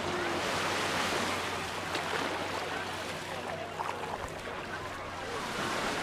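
Small waves washing up onto a gravelly beach at the water's edge, the surge swelling in the first second or two, with beach-goers' chatter faintly mixed in.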